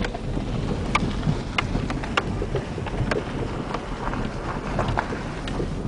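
Car rolling slowly over an unpaved, stony road, heard from inside the cabin: a steady low rumble of engine and tyres with scattered sharp clicks of stones under the wheels.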